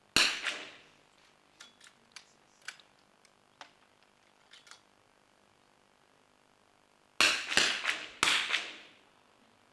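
.22 smallbore target rifles firing in an indoor range hall: a sharp shot just after the start, then a few more in quick succession near the end, each with a short echo. Fainter clicks fall in between.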